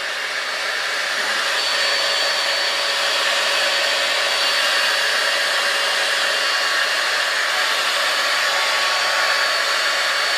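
5-in-1 hot air styler's curling-wand attachment blowing air steadily, a rushing hiss with a high motor whine.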